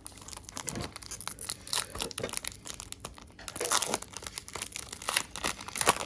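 A trading card pack's wrapper being torn open and crinkled by hand, an irregular run of crackling and tearing.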